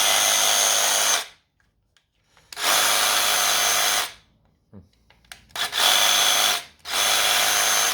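Dewalt 20V cordless jigsaw running in four short bursts of about a second each, stopping between bursts as the trigger is pulled and released. The trigger will not lock on, so the saw stops each time it is let go.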